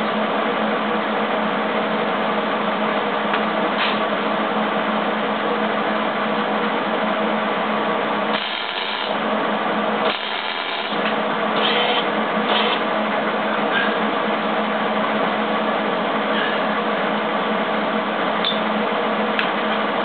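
Miller Millermatic 175 wire-feed (MIG) welder arc-welding steel, with C25 shielding gas and .035" wire: a steady frying crackle and buzz as the bead is laid. It drops away briefly twice about nine to eleven seconds in.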